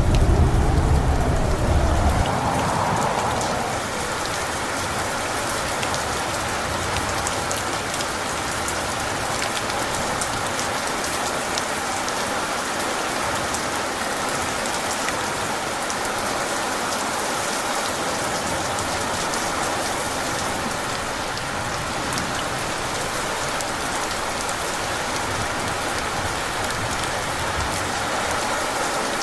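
Steady, heavy rainfall, an even hiss of drops hitting surfaces. A deep thunder rumble is dying away in the first two seconds or so.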